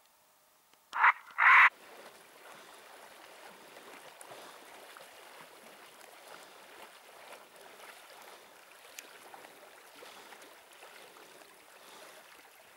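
Water splashing steadily as a drahthaar (German wirehaired pointer) swims, retrieving a duck. About a second in come two loud short sounds, half a second apart.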